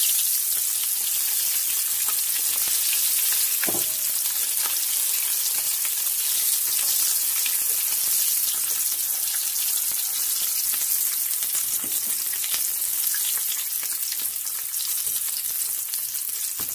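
Pastry-wrapped meat boti rolls deep-frying in hot oil in a pan: a steady crackling sizzle, with a single knock about four seconds in.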